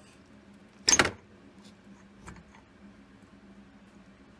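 One sharp metallic clank about a second in, then a small click, as a claw hammer and steel rod are levered against a screw driven into an engine's crankshaft seal to pry the seal out.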